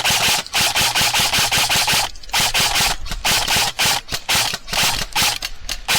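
Loud, rhythmic scuffing and rubbing, about three strokes a second, with a short break about two seconds in: an airsoft player on the move, with his gear rubbing close to the rifle-mounted camera.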